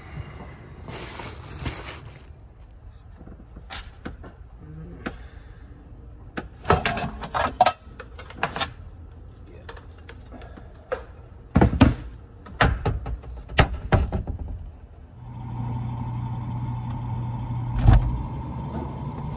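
Kitchen clatter: a series of knocks and clunks, like cookware and cupboard doors being handled. About three quarters of the way through, a steady appliance hum starts up and runs on, with one heavy thud near the end.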